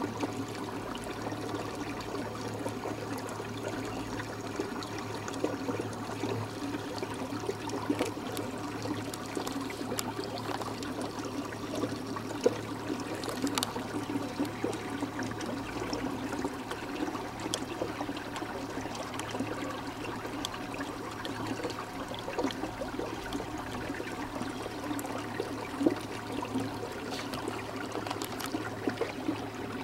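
Lake water lapping and trickling, with small irregular splashes and clicks scattered throughout.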